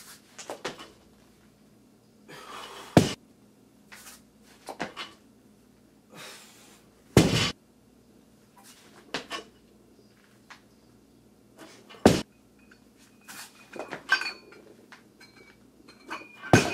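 A plate-loaded barbell is lifted and put back down on a concrete floor, about four heavy impacts a few seconds apart. Between them come smaller clanks and rattles from the bar and plates.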